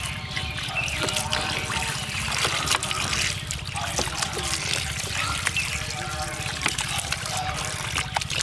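Water poured from a steel bowl trickling and splashing over raw mutton pieces in a steel tray, with the small wet slaps of hands rubbing the meat as it is washed.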